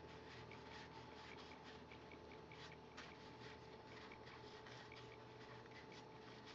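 Faint, quick series of soft ticks and rubs as cardboard baseball cards are slid and flipped one at a time off a stack, over a faint steady hum.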